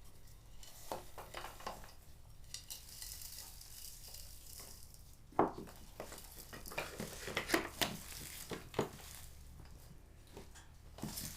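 Quiet kitchen handling of seasoned raw meat in a bowl: scattered soft taps and clinks, a sharper knock about five seconds in and a cluster of taps a couple of seconds later, with a faint hiss earlier on.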